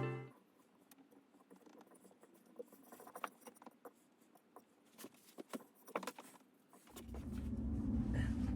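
Background music fades out at the start, followed by faint, scattered, irregular clicks and taps. From about seven seconds in, a low rumble rises.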